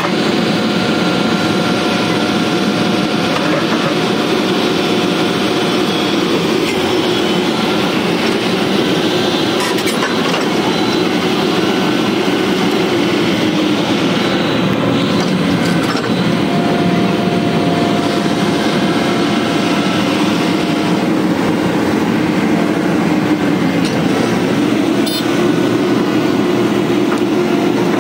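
Diesel engines of hydraulic excavators running steadily and loudly, with no breaker hammering.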